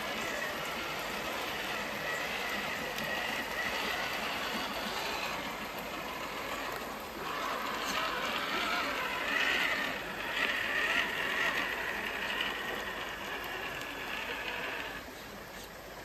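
Scale RC crawler's electric motor and gears whining as it drives through shallow creek water, over the sound of water splashing and flowing. The whine rises and falls with the throttle, loudest about halfway through, and drops back near the end.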